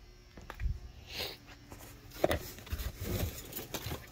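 Handling noise from sorting goods out of cardboard boxes: scattered rustles, light knocks and clicks, with one sharp click a little over two seconds in.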